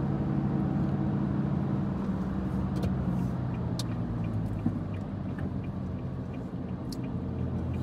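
Car engine hum and road noise heard from inside the cabin of a moving car, the engine note shifting in pitch a couple of times.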